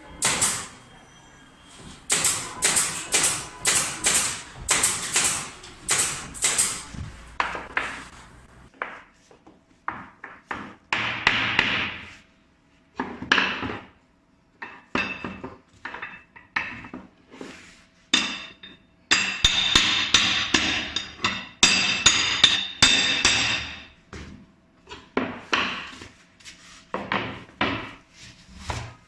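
Hammer strikes in carpentry work: a run of steady blows about two a second, then irregular knocks and ringing strikes.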